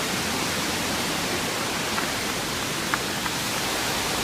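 Steady rushing roar of a large waterfall, Burney Falls, pouring into its pool.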